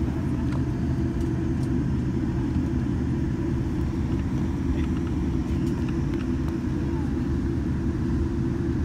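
Cabin noise of a Boeing 787-9 taxiing: a steady low rumble from its idling GEnx engines and the airframe rolling along the taxiway, with a faint steady whine over it.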